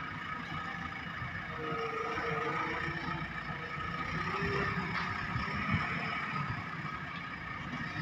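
JCB backhoe loader's BS4 diesel engine running steadily as the machine drives and levels sand with its front loader bucket.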